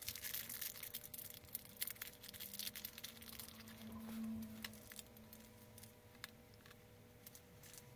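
Faint, irregular light clicks and taps of small plastic Nendoroid figure parts being handled and set down.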